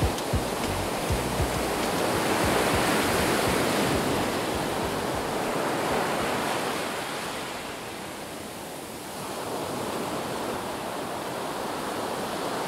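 Surf breaking and washing up the sand close by, a steady rush of water and foam that swells, eases off and builds again as the next wave comes in. A few low thumps come near the start.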